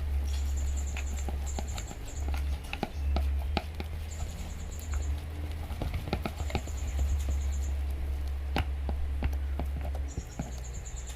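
Homemade slime of glue, gum and soap being stirred and worked in a container, making irregular sticky clicks and squelches.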